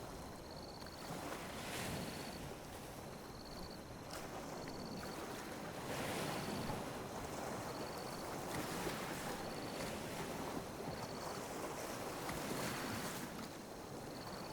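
Gentle ocean waves lapping and washing up on a beach: a continuous hiss of water that swells and eases every few seconds. A faint, short, high chirp repeats about once a second.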